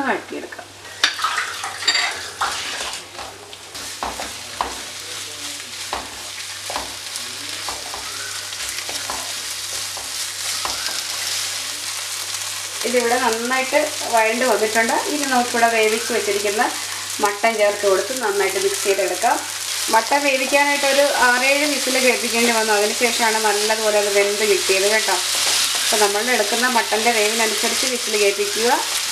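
Onion-tomato masala frying and sizzling in a ceramic-coated frying pan as a spatula stirs and scrapes it. From about halfway the stirring gets louder, with a squeaky pitched scrape that bends with each stroke.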